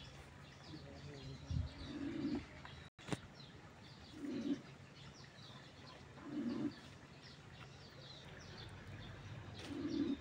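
Birdsong: a low coo repeated about every two seconds, with small birds chirping high over it.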